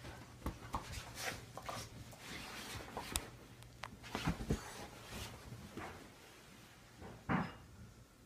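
A dog and a cat wrestling in play on a bed: irregular scuffling and rustling of the bedsheet with soft bumps and a few sharp knocks, and one louder short sound near the end.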